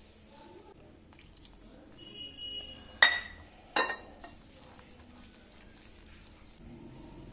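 A stainless-steel wire whisk stirring gram flour, spices and water into a batter in a bowl: a soft scraping, with two sharp, ringing clinks about three and four seconds in.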